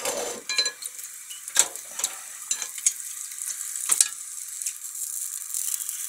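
Whole fish sausage sizzling in a little hot oil in a non-stick frying pan, with several short knocks of wooden chopsticks against the pan and sausage as it is turned. The sizzle builds a little toward the end.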